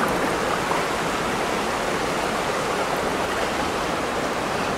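Shallow rocky creek running steadily over stones: a constant, even sound of flowing water.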